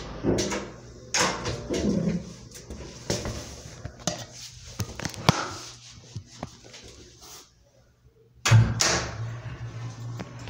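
Clunks and knocks from a hydraulic elevator's swing door and from someone moving out of the car, with a sudden loud knock about eight and a half seconds in followed by a low steady hum.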